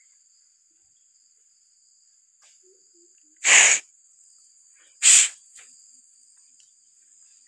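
Two loud, short thuds about a second and a half apart as oil palm fruit bunches are thrown up onto a truck's heaped load, over a steady high-pitched drone of insects.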